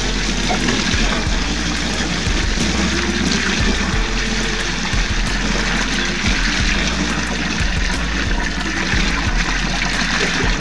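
A thick stream of water pouring steadily into a shallow inflatable paddling pool as it fills, splashing and gushing onto the water's surface.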